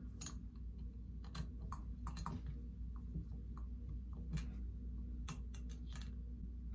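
Light, irregular metal clicks and taps of a small Allen wrench in the set screw of a chrome Delta shower handle, as the screw is tightened a half turn at a time and the wrench is pulled out and reseated.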